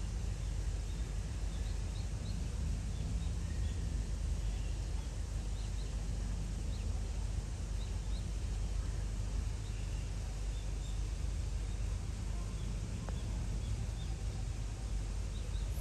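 Steady low outdoor rumble with faint, short bird chirps scattered throughout.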